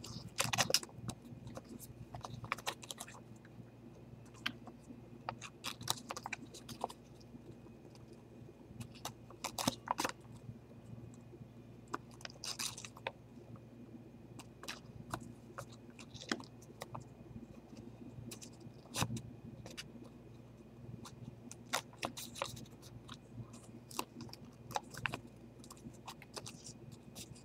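Folded paper hexaflexagon being flexed by hand: irregular crinkling and crackling of the paper as it is folded and turned, over a steady low hum.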